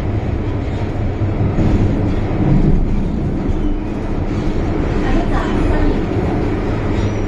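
MTR Island Line M-Train heard from inside the carriage while running: a steady low rumble of wheels on the track with a low, even hum.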